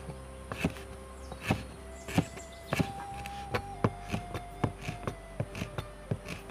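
Chef's knife chopping through rolled leaves onto a wooden cutting board, sharp knocks about twice a second at an uneven pace.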